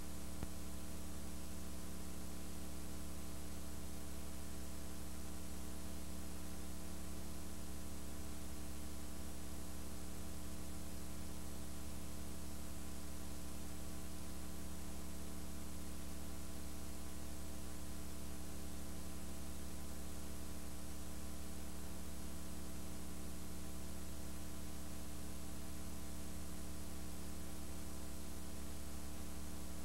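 Steady electrical mains hum with faint hiss, unchanging throughout, and no arena sound. The audio track has dropped out, leaving only the hum of the recording chain.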